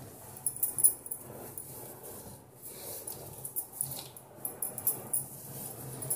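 Cotton cloth rustling and swishing in irregular bursts as a large piece of stitched fabric is gathered up and lifted by hand.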